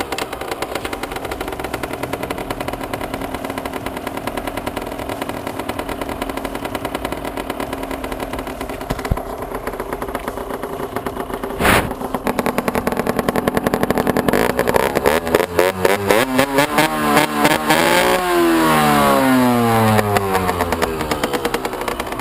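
Derbi DRD Pro's 50cc two-stroke engine through a Metrakit Thrower Carbon exhaust, running at a steady speed with a fast rattling beat and one sharp knock partway through. In the last third the revs climb to a peak and then fall away.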